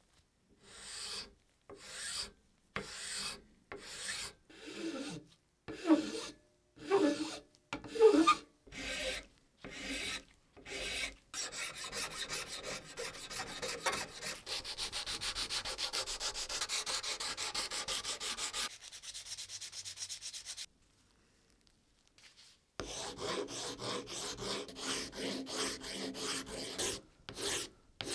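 Hand rubbing with an abrasive on a rusted pocket knife while its rust is removed. It starts as separate strokes about once a second, then turns into fast continuous scrubbing for about nine seconds, pauses briefly near the end, and resumes rapidly.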